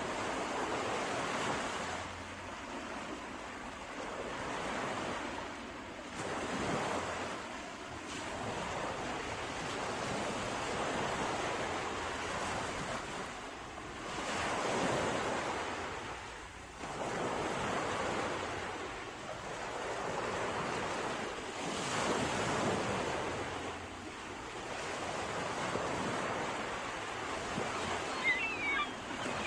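Sea waves breaking and washing ashore, the surf swelling and ebbing every few seconds.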